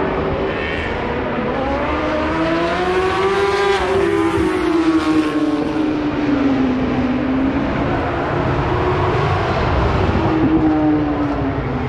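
Racing superbike engine at high revs: its pitch climbs for about four seconds and then drops sharply, as at a bike passing by. Slower rises and falls in engine pitch follow.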